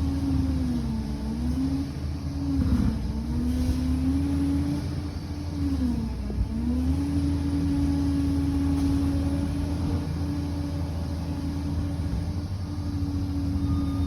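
Diesel engine of a Liebherr 746 crawler bulldozer running hard, with a heavy low rumble under a steady engine note. The pitch dips briefly and comes back up about three times.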